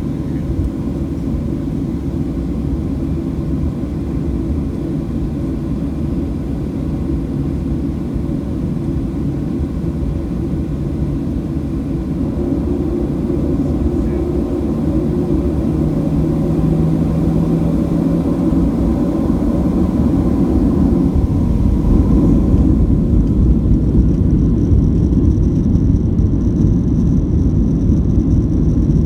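Boeing 737-700 cabin noise: the CFM56 engines and airflow make a steady low rumble. It grows louder and deeper about two-thirds of the way through, and a thin high whine joins near the end.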